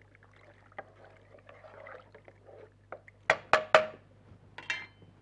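Plastic spoon stirring soup in a pot. A little past three seconds in come three quick, loud knocks as the spoon is tapped on the pot's rim, and then a clink with a short metallic ring as it is set down on a metal pot lid.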